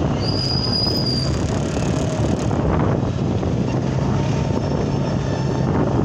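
Riding along a street: a vehicle engine runs steadily under rushing wind on the microphone, and a brief high squeal, about a second long, sounds near the start.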